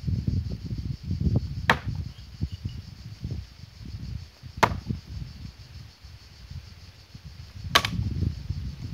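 Three throwing knives hitting a wooden plank target one after another, about three seconds apart, each a sharp thwack. The last hit is the loudest and rings briefly. A low rumble runs underneath.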